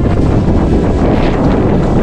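Wind buffeting the microphone, a loud, steady rumble heaviest in the low end.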